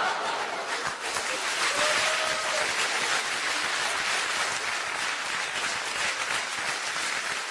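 Audience applauding after a stand-up punchline, a steady clapping that carries on through the whole stretch.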